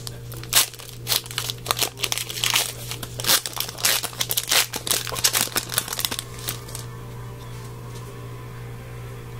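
Foil wrapper of a trading card pack being torn open and crinkled, a dense crackling for about six and a half seconds that then stops, leaving a steady low hum.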